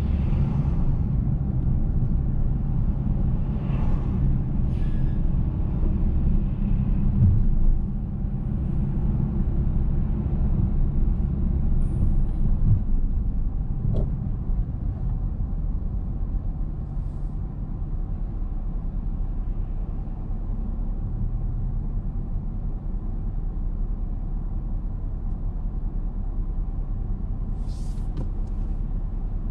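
Car driving, with a steady low engine and road rumble that eases to a quieter, even idle as the car slows and stops.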